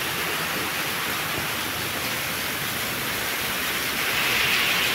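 Heavy rain pouring down in a steady hiss, which grows slightly louder about four seconds in.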